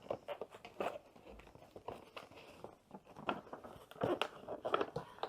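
Cardboard scuffing and light tapping as a small box is worked out of a tipped-up cardboard advent calendar compartment: irregular rustles and small knocks, busier near the end.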